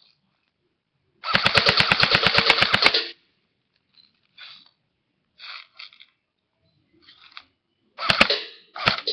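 Airsoft M4A1 rifle firing a rapid full-auto burst of evenly spaced shots, about ten a second, lasting under two seconds. A few fainter short sounds follow, and a couple of sharp cracks come near the end.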